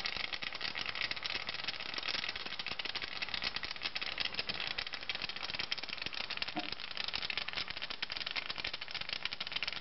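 Beer foam fizzing with a steady, dense crackle of tiny bubbles popping as it wells out of the neck of a bottle of lager. The beer was left in the freezer, which is what makes it foam over.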